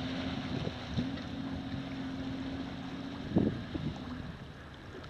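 Jeep Wrangler's engine pulling at a steady pitch as it climbs out of the river onto the gravel bank, with wind on the microphone. A short thump comes about three and a half seconds in, and the engine note drops away soon after as the Jeep stops.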